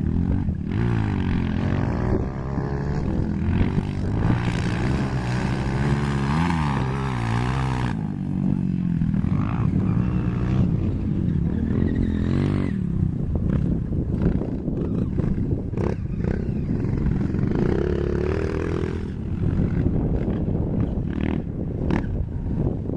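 Honda CRF230 dirt bike's single-cylinder four-stroke engine being ridden hard, revving up and dropping back again and again as it shifts gears in the first eight seconds, then running on with a rougher, choppier note.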